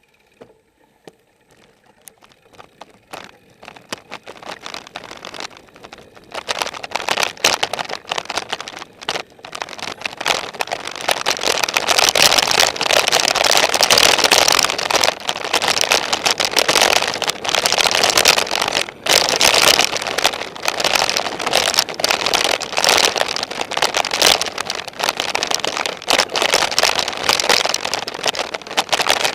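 Wind and motion noise rushing over an action camera's microphone as the rider picks up speed. It builds from quiet over the first several seconds into a loud, crackling rush that stays up.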